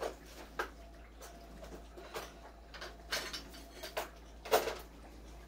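Parcel packaging being handled and opened: scattered light clicks and taps, with louder rustles about three seconds in and the loudest knock-and-rustle near the end.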